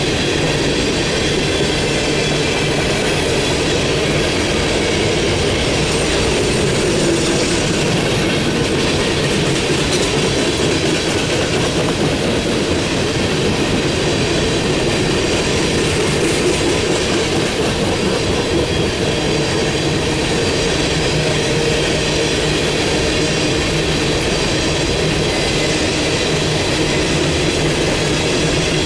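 Freight train of open-top coal hopper cars rolling past close by at a steady speed: steel wheels rumbling and rattling on the rails, loud and unbroken.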